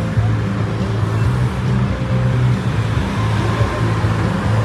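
Steady road traffic noise from passing cars, with music underneath carrying a low bass line that changes note every half second or so.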